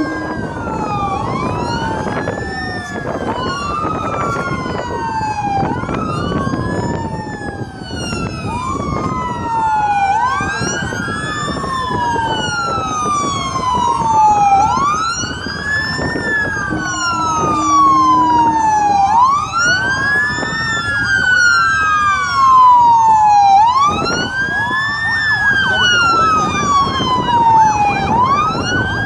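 Two or more emergency-boat sirens wailing at once, each rising and falling over two to three seconds and overlapping one another, over a steady rumble of engines and water. A short steady horn blast sounds about seventeen seconds in.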